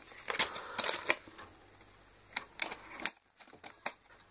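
Sharp plastic clicks and clatter from handling a multicooker's control board and its plastic front panel as they are fitted together: a quick flurry of clicks in the first second, then a few single clicks spaced apart.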